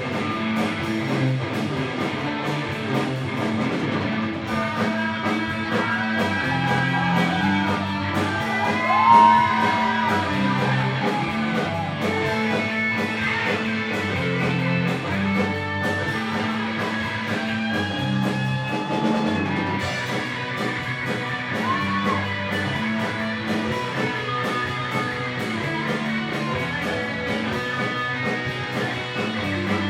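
A live rock band playing, with electric guitar, bass, drums and keyboard; a lead line bends up and down in pitch, loudest about nine seconds in.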